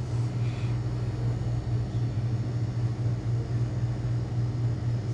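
Steady low hum with a faint rumble underneath, holding an even pitch throughout.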